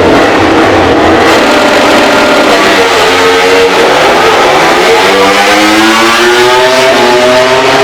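MotoGP racing motorcycle engine held at steady high revs, then rising steadily in pitch from about halfway through as the bike accelerates away, as on a launch-control start.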